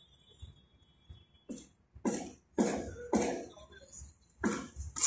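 A person coughing: four harsh coughs in quick succession starting about a second and a half in, then one more near the end.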